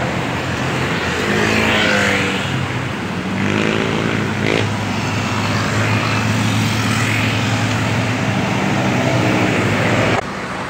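Motor engines running: a steady noisy background with a low drone, and two engine notes that glide up and down in pitch about one and a half and four seconds in.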